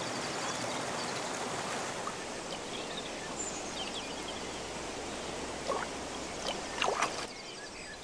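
Mountain stream rushing steadily over rocks, with a few faint short chirps in the second half.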